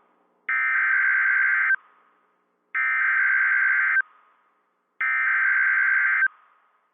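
Emergency Alert System SAME header broadcast on NOAA Weather Radio: three identical bursts of digital data tones, each about a second and a quarter long with about a second of silence between them. The data encode the alert, here a severe thunderstorm watch.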